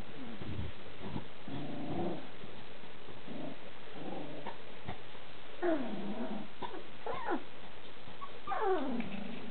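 Three-week-old golden retriever puppies whining: a few short squeaky calls, then two longer cries that fall in pitch, about halfway through and near the end.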